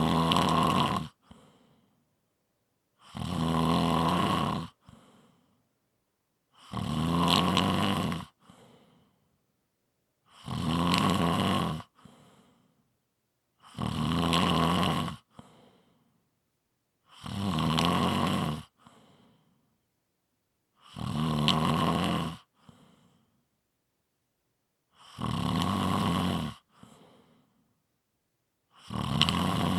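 A person snoring in a slow, even rhythm: nine long, rasping snores about three and a half seconds apart, each followed by a brief, fainter breath, with silence between.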